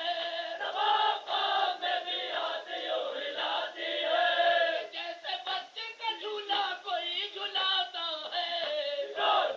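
Voices chanting an Urdu noha, a Shia mourning lament, sung in a choir-like chorus with long, wavering held lines.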